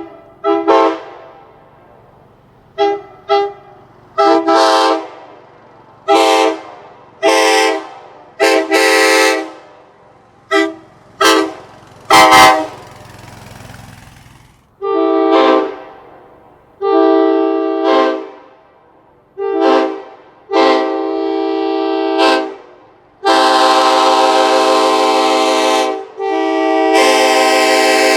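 Nathan K5LA five-chime train horn on a truck, sounded in about ten short toots. After a click and a brief hiss of air, a K5LLA horn sounds in blasts of about a second, then two long held blasts near the end.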